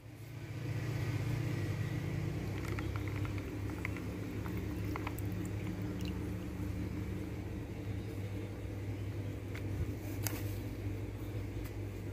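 A steady low hum with faint soft rustles and a few light taps as raw chicken pieces are tossed and pressed in a plastic bowl of seasoned flour.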